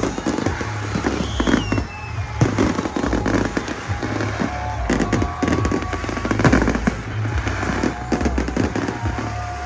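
Aerial fireworks bursting in rapid succession, a dense run of booms and bangs, over music with a steady bass line playing along with the show.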